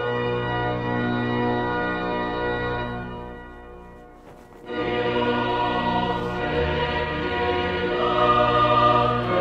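Choral music with long held chords. It fades away about three seconds in and comes back in louder just before five seconds in.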